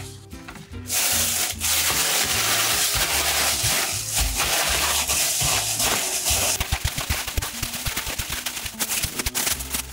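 A thin plastic bag holding raw chicken pieces and seasoning powder crinkling and rustling as it is shaken and kneaded by hand. The rustle is loud and continuous from about a second in, breaking into quicker, separate crackles in the last few seconds.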